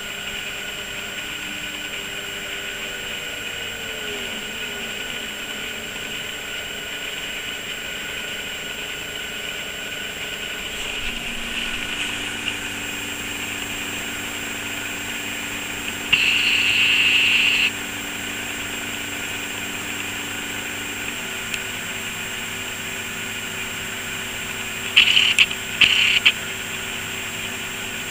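A CNC machine running, its axis motors whining in steady tones that glide and shift pitch as the moves change. A louder, brief hissing burst comes about two-thirds of the way through, and three short ones near the end.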